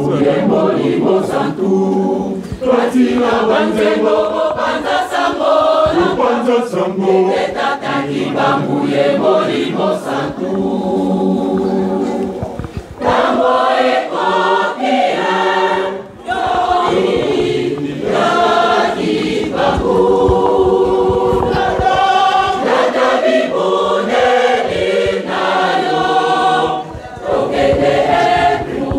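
A large church choir singing together, the song moving in phrases with a few short breaks between them.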